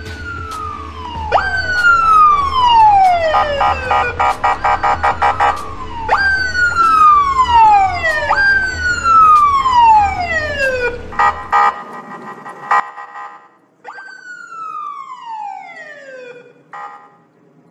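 Electronic police siren. A tone jumps up and falls away over about two seconds, five times, alternating with a fast pulsing warble. A low hum underneath stops about two-thirds of the way through.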